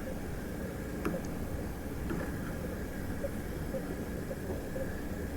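A sleeping hamster snoring: short, faint snores about twice a second over a steady low background noise, with one sharp click about a second in.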